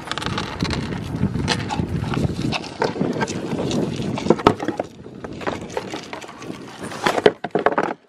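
Goats eating small pieces of food off a wooden floor right at the microphone: close crunching, munching and snuffling, with muzzles rubbing and knocking against the camera, the sharpest knocks about four and a half seconds in and near the end.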